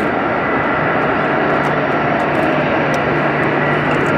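Steady jet engine noise from taxiing airliners, including a Boeing 747-400: a constant turbofan whine with one steady high tone over a broad rumble.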